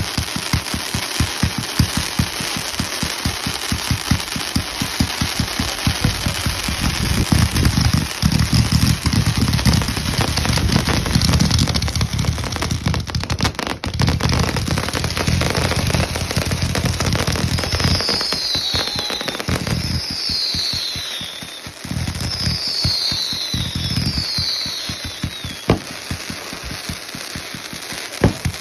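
Consumer fireworks going off: a long run of rapid crackling pops that grows densest in the middle, then four whistles, each falling in pitch, about two seconds apart, with a couple of sharp cracks near the end.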